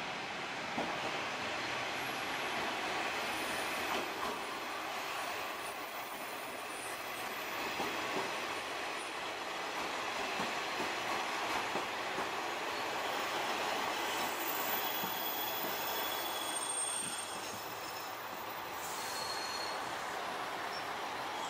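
JR Shikoku diesel railcar rumbling as it moves along the station track, with high-pitched wheel squeal in the second half.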